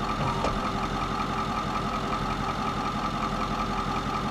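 A steady mechanical motor hum, like an engine idling, with a faint regular pulse and one small tick about half a second in.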